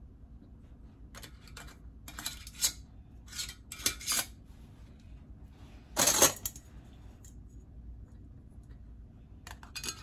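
Metal canning bands and lids clinking and scraping against glass quart mason jars as the bands are screwed on fingertip tight, in a string of short clicks with pauses between them. The loudest clatter comes about six seconds in.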